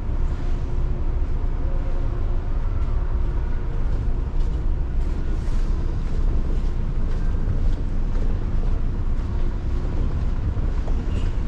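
Wind buffeting the microphone on a cruise ship's open upper deck at sea: a steady low rumble, with a faint steady hum underneath.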